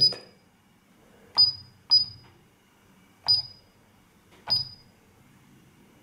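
Paradox alarm keypad giving a short, high beep at each button press, four times, as the digits of a new time are keyed in.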